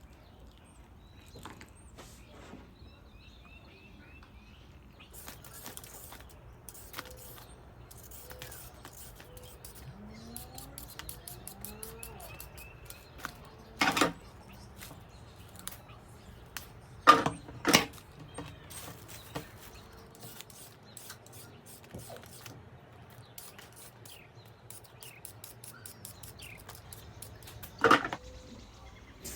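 Kitchen food-preparation sounds: scattered light clicks and taps, a run of rapid light ticks, and a few sharper knocks, the loudest midway, twice in quick succession a few seconds later, and once near the end. Birds chirp faintly in the background.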